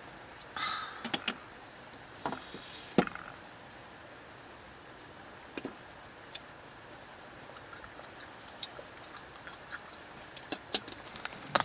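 Small objects being handled and set down, giving sparse clicks and knocks over a steady faint hiss. There is a brief rustle about half a second in and a sharper knock about three seconds in.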